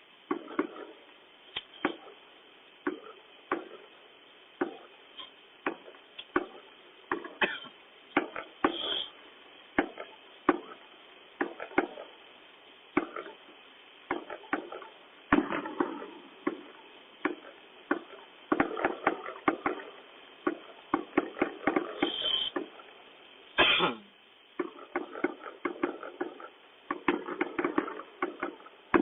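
Fireworks and firecrackers going off all around in irregular sharp bangs, some single and some in rapid crackling runs, with a thin, tinny tone.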